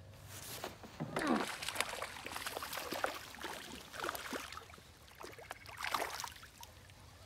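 A small hooked bass splashing and thrashing at the water's surface as it is reeled up to the boat. The splashes come in a run, loudest about a second in, with more around four and six seconds.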